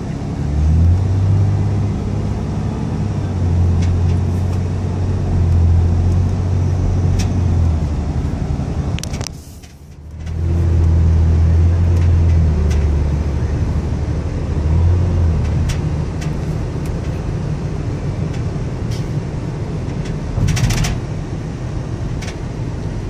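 Car interior noise while driving in traffic: a low engine-and-road drone that swells and eases, dropping out for about a second midway, with a few sharp clicks near the end.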